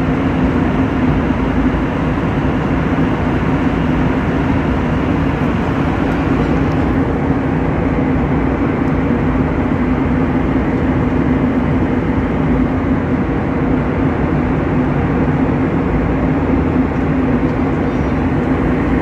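A ship's engine droning steadily, with a constant low hum under an even rush of wind and water noise.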